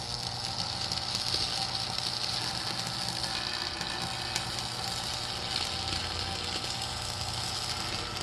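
Electric arc welding: a steady, sizzling crackle of the arc running for about eight seconds, with a low hum underneath, cutting off sharply at the end as the arc is broken.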